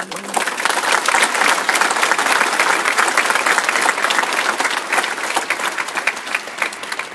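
Congregation applauding in a large reverberant church, many hands clapping together; it swells within the first second and dies away near the end.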